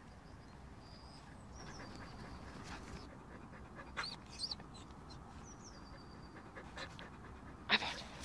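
Terrier-type dog panting close to the microphone, with a few sharp clicks about four seconds in and a louder knock and rustle just before the end.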